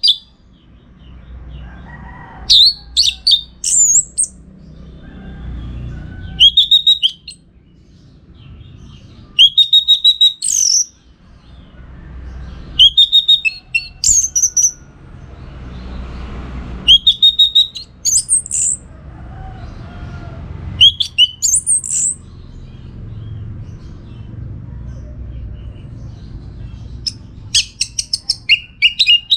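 Orange-headed thrush singing: short, loud, high-pitched whistled phrases, one every couple of seconds, over a faint low rumble.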